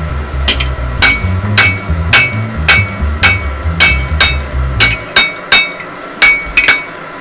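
Blacksmith's hammer striking hot steel on an anvil at a steady pace of about two blows a second, each blow ringing.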